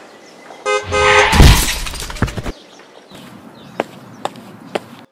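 Car horn sounding, a short honk and then a longer one, cut off by a loud crash of a car hitting a person, with glass breaking and debris clattering for about a second. Then three sharp footsteps about half a second apart.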